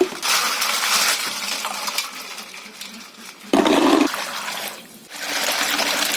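Water being poured and splashed in three surges: a long gush at the start, a shorter, lower splash a little past halfway, and another gush near the end.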